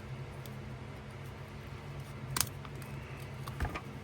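Pocket knife whittling a stick, with a few sharp clicks of the blade cutting into the wood, one about two and a half seconds in and a few more near the end, over a steady low hum.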